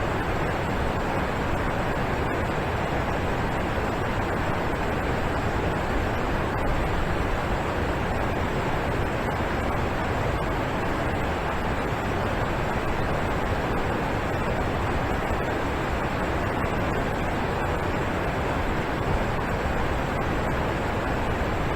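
Alpine waterfall: water falling and splashing onto rock in a steady, unbroken rush.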